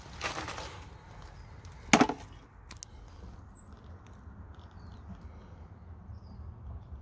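One sharp, loud knock about two seconds in, after a short scuffing rustle near the start, with a faint click just after the knock.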